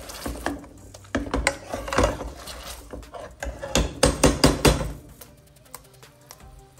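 Metal potato masher pressing fried onions in a steel pan, knocking and scraping against the pan bottom over and over, with a quick run of loud knocks about four seconds in. The mashing stops about five seconds in, leaving faint background music.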